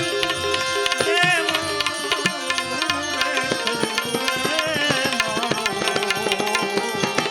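Instrumental passage of a Gujarati devotional bhajan: quick, steady tabla strokes under a sustained melody line, with no singing.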